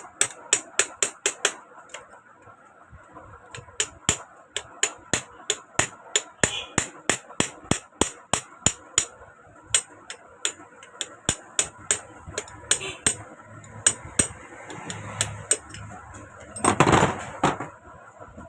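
Repeated light hammer taps on a rust-seized sewing machine bar, driving it down out of its bushing. The metallic taps come in runs of about two to three a second and thin out near the end, where one louder clatter lasts about a second.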